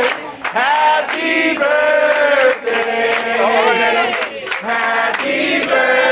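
Voices singing together in long held, sliding notes, with sharp claps now and then.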